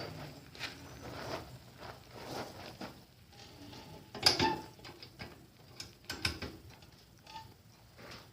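Scattered clicks and knocks of metal parts being handled and fitted while the front end goes onto the bike frame, with a sharper knock about four seconds in and another about six seconds in.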